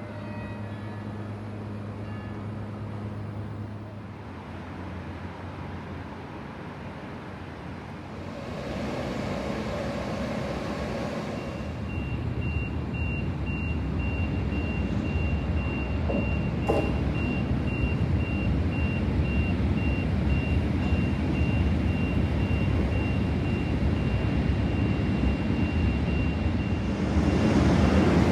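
Train moving at a railway station: a low rumbling running noise that builds steadily louder, with a thin steady high-pitched tone setting in partway through.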